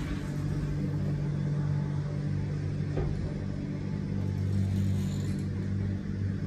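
Steady low hum and rumble of a 2008 Schindler traction elevator heard from inside its cab as the car travels, with a faint click about three seconds in.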